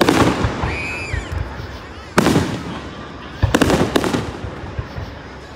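Aerial fireworks shells bursting: a loud boom right at the start, another about two seconds in, then a quick run of three bangs between three and a half and four seconds, each trailing off in a fading rumble.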